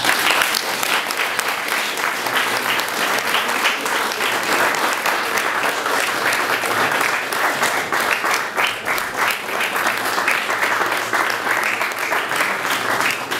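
Audience applauding: dense, steady clapping that breaks out suddenly as the music ends.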